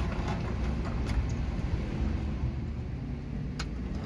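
Car engine idling, a steady low rumble heard from inside the car, with a single sharp click about three and a half seconds in.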